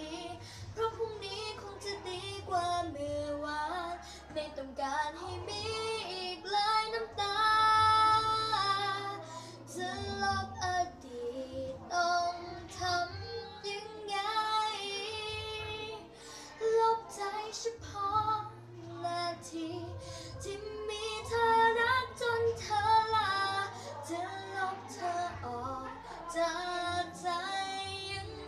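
A teenage girl singing a slow Thai ballad solo and unaccompanied, with long held notes.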